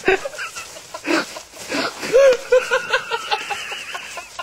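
Short bursts of laughter, with a thin, high warbling tone running over them in the second half, the warning tone of an electronic dog collar.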